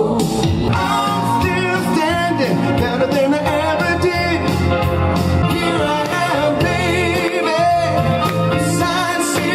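A male singer singing live into a microphone with vibrato, over a full instrumental accompaniment.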